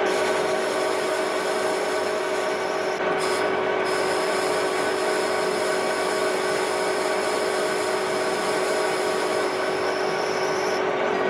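An electric power tool running steadily with a constant motor hum and a rough, abrasive rubbing sound. The high hiss drops out briefly about three seconds in.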